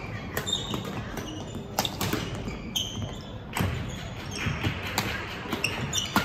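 Badminton rally: repeated sharp racket hits on the shuttlecock and court shoes squeaking on the floor.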